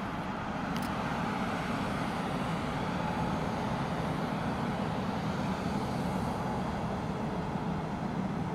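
Airbus A350-900's Rolls-Royce Trent XWB jet engines running at low taxi thrust as the airliner taxis close by: a steady low rumble with a hiss above it, growing slightly louder over the first couple of seconds.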